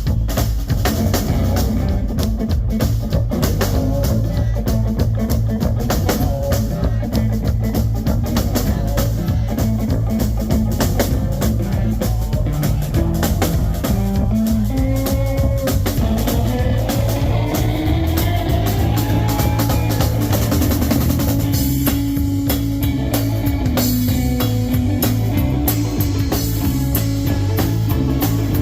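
Live blues boogie band playing an instrumental break: a lead guitar with sliding, rising notes over a steady bass and drum kit groove.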